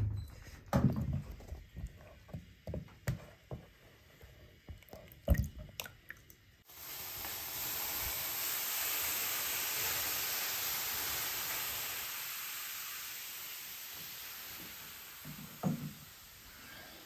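A few knocks and clicks on the wooden sauna floor, then about seven seconds in, water hits the hot stones of a wood-fired sauna stove: a sudden loud hiss of steam that slowly fades away.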